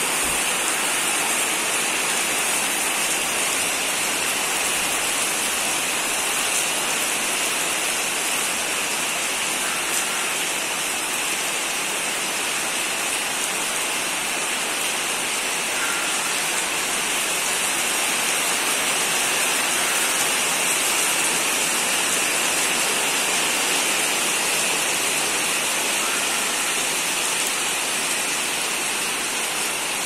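Heavy rain falling steadily on leaves and puddled muddy ground: a constant, even hiss.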